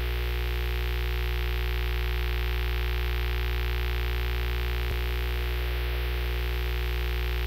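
Loud, steady electrical hum: a deep, unchanging buzz with many overtones, with one faint tick about two-thirds of the way through.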